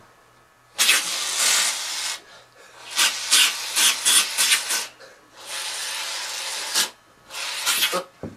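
Aerosol foam can spraying in hissing bursts: a long spray about a second in, then a run of short quick squirts, another long spray, and a short one near the end.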